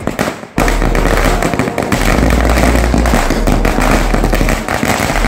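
A 1000-wala firecracker garland going off in a rapid, unbroken crackle of small bangs, with a brief lull about half a second in.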